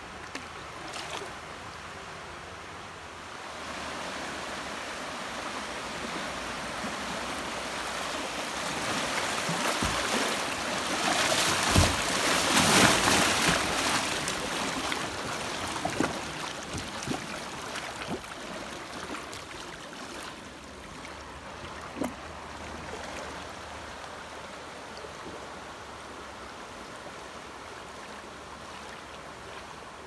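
Creek water rushing and splashing past a kayak running a riffle, swelling to its loudest about twelve seconds in and then easing off, with a few sharp knocks along the way.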